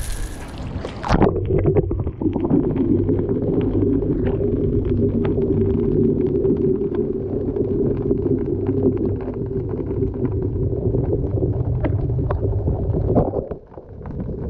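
Underwater sound picked up by a camera lowered beneath a pier: a muffled, steady rush of water with many faint small clicks. The high sounds cut off about a second in as the camera goes under.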